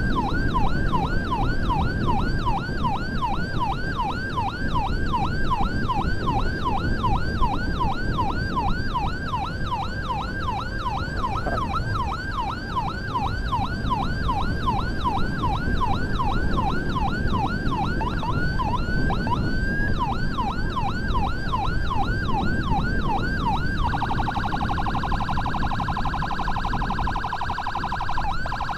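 Ambulance electronic siren in a fast yelp, about two and a half rising-and-falling sweeps a second, over the rumble of the moving vehicle. Near twenty seconds in the siren briefly breaks into a slower sweep. A few seconds later it switches to a much faster rapid warble.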